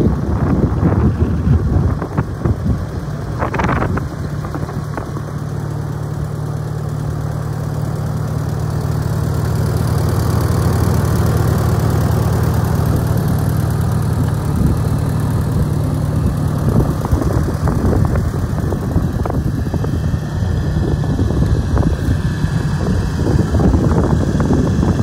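1962 Minneapolis-Moline 4-Star tractor engine running at idle. It is uneven for the first few seconds, then settles into a steady idle.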